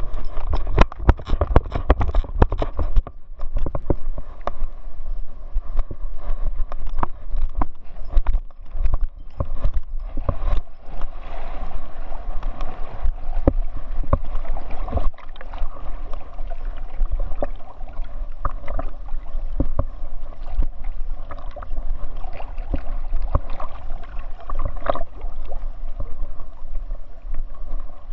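A chocolate Labrador swimming, heard from a camera strapped to her back: water sloshing and gurgling close by. Irregular knocks come thickest in the first dozen seconds, then a steadier rush of water.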